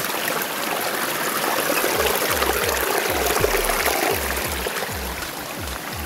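Small stream of water rushing and splashing over rocks. Background music with a steady low drum beat plays over it.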